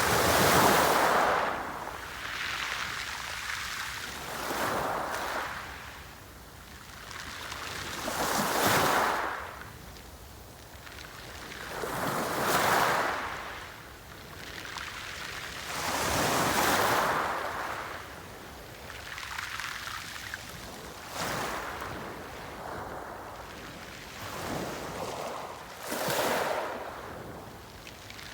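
Sea waves breaking and washing on the shore, one swell of surf rising and falling back about every four seconds.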